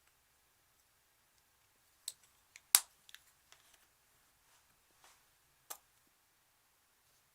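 Slime being pressed and stretched by hand, giving off a scatter of sharp pops and clicks from trapped air bubbles, about six in all, the loudest a little under three seconds in.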